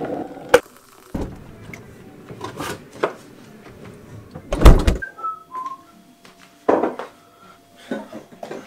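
Knocks and handling clatter of someone moving around a kitchen, with a sharp click early and a loud thump about halfway, followed by a few short squeaky, whistle-like notes.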